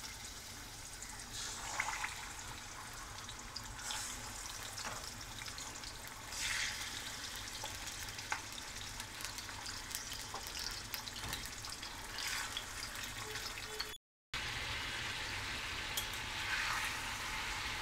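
Raw chicken pieces sizzling in hot oil in an iron karahi, a steady frying hiss with occasional brief louder surges. A metal spatula stirs the pieces near the end.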